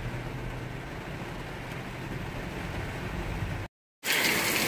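Vehicle engine idling with a steady low hum inside the cabin while heavy rain pours over the windshield. After a brief cut near the end, heavy rain falling outside, an even hiss.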